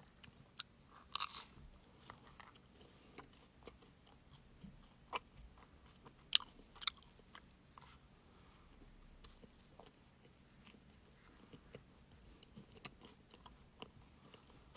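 Crunching and chewing of a wafer ice cream cone: scattered crisp bites, the loudest about a second in and again between five and seven seconds in.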